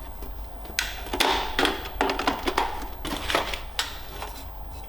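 Irregular clicks, taps and knocks of hard equipment being handled, over a steady low hum.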